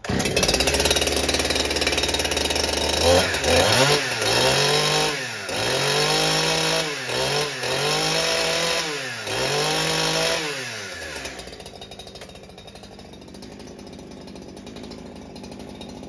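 Holzfforma 372 Pro 71cc two-stroke chainsaw firing up on a cold start after sitting for weeks. It runs fast and steady for about three seconds, is then revved up and down several times, and drops to a quieter idle about eleven seconds in as it warms up.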